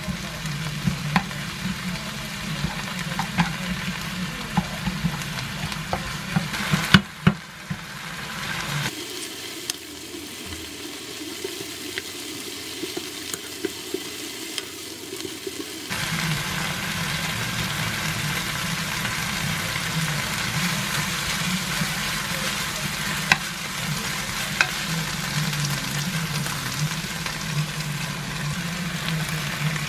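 Mud snails and chopped vegetables with doenjang and a little water sizzling in a frying pan while a spatula stirs them, with scattered scraping taps on the pan over a low steady hum. There are a few louder knocks about seven seconds in.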